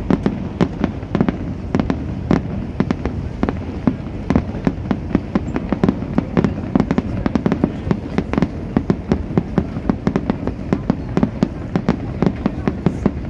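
Fireworks display: a dense, irregular barrage of bangs, several a second, over a steady low rumble.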